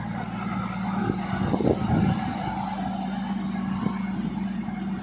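Tata Hitachi crawler excavator's diesel engine running under load as the machine tracks up onto a trailer, getting louder after about a second, with a few clanks from the steel tracks about one and a half to two seconds in.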